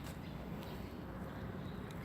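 Steady outdoor background noise, a faint even hiss with a few soft ticks or taps scattered through it.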